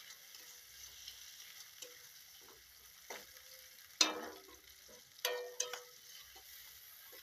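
Sliced onions and tomatoes sizzling in hot oil in a metal wok while a wooden spatula stirs them, scraping the pan a few times. The loudest scrape, about four seconds in, makes the wok ring briefly.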